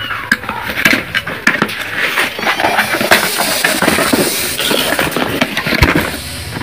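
A cardboard box with a clear plastic window being handled and opened close up: continuous crackling, rustling and many small clicks, with a low thump near the end.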